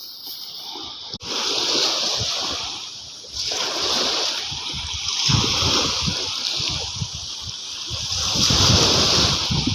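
Shallow seawater splashing and sloshing, an irregular washing noise that grows louder in the second half.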